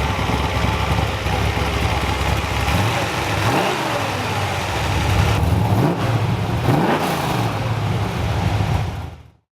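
Freshly rebuilt 1969 Chevelle 468 big-block V8 running just after its first start, revved up and back down twice. The sound cuts off suddenly near the end.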